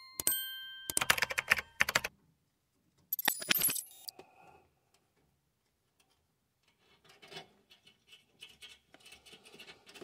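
A short electronic chime, then two loud bursts of rapid clicking, followed by faint scattered clicks and rustles as hands work the rubber pressure-switch hose off its nozzle on a gas furnace.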